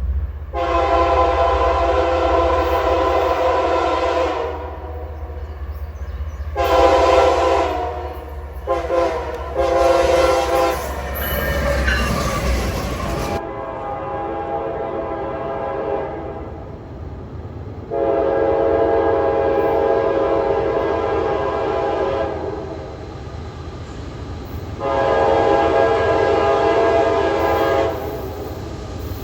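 Locomotive multi-chime air horn sounding a chord in repeated blasts: one long blast, two shorter ones close together, then two more long blasts later on. A train's low rumble runs under the first blasts and cuts off about 13 seconds in.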